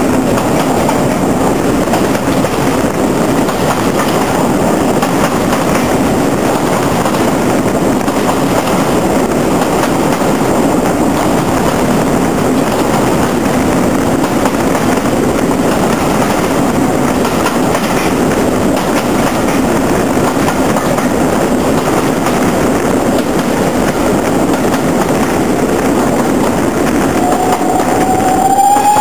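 Heritage steam train running along the track, a loud steady rumble. Near the end the locomotive's whistle sounds, a tone that rises and then holds.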